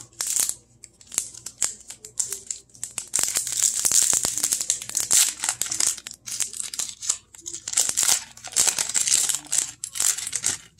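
Foil wrapper of a trading card pack being torn open and crinkled in the hands: sharp crackling crinkles and tearing, coming in uneven runs with brief pauses.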